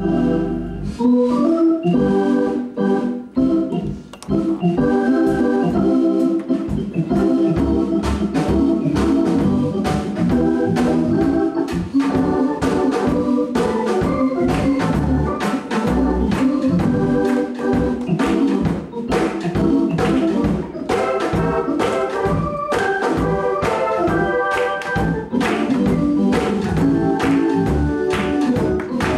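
Instrumental gospel music from a church band, led by an organ playing chords over a steady drum beat.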